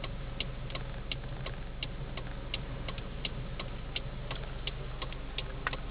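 Faint, steady ticking, about three ticks a second, over a low steady hum.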